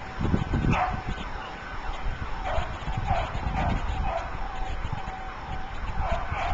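Burglar alarm sounding, heard as a run of short falling cries over a faint steady tone, under heavy wind buffeting the microphone from a gusty 40-mile-an-hour wind.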